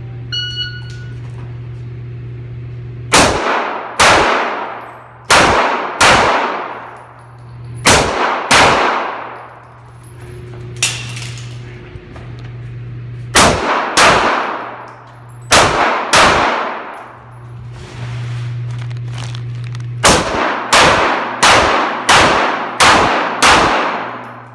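A shot timer's start beep, then a pistol fired in an indoor range, each shot echoing: five quick pairs of shots spread over the first two thirds, then a fast string of seven near the end. A steady low hum runs underneath between the strings.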